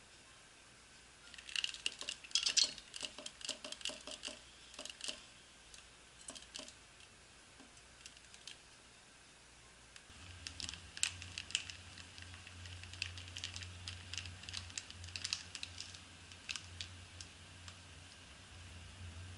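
Canola oil poured from a plastic bottle into a stainless steel pot: irregular crackling clicks and splashes, in two pours with a pause of a few seconds between them.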